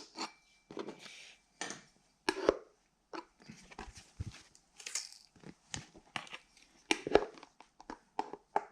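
3D-printed plastic pieces being worked and peeled loose by hand: irregular clicks, scrapes and crackling, with a louder knock about seven seconds in.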